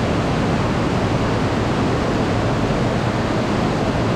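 Heavy rain pouring down, a steady dense hiss, heard from under the sheet roof of a covered walkway.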